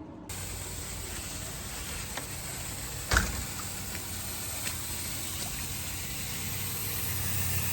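Lawn sprinkler zone running, a steady hiss of water spraying from the heads, switched on to trace a leak in the line. A single knock about three seconds in.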